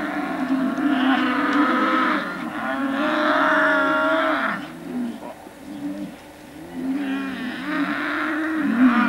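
Cattle lowing: long, wavering moos, one stretch over the first four and a half seconds and another from about seven seconds in.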